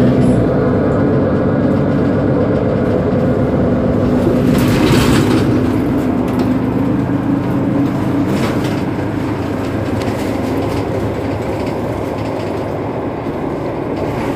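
Mercedes-Benz Citaro G C2 articulated city bus idling at a stop, its rear-mounted engine running steadily, with a short hiss about five seconds in and another briefer one after about eight seconds.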